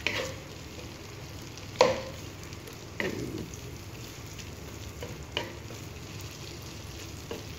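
Sliced white onion sizzling gently as it sautés toward translucent in a coated wok, stirred with a wooden spatula that knocks against the pan a few times, loudest about two seconds in.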